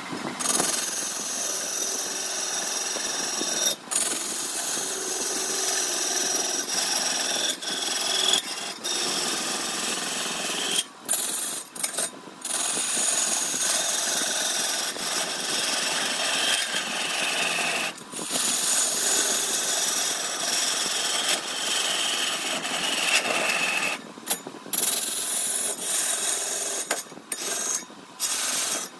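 Turning tool cutting into wood spinning on a wood lathe: a steady scraping hiss, broken by several brief gaps where the tool comes off the work.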